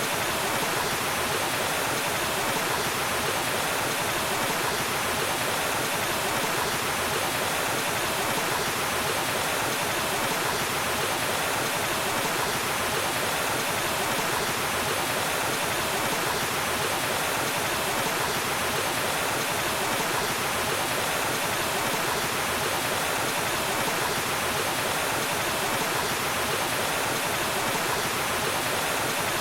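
Waterfall: water falling and rushing in a steady, even roar of white-noise-like splashing, unchanging throughout.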